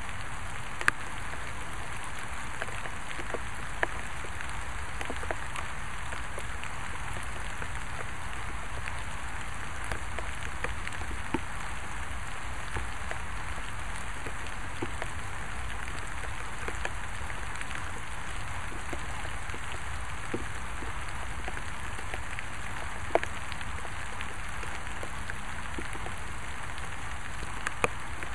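Steady rain, an even hiss with louder drops ticking here and there, one standing out about 23 seconds in.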